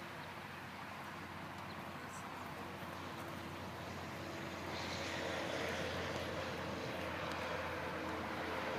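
Steady distant engine drone, growing louder about halfway through.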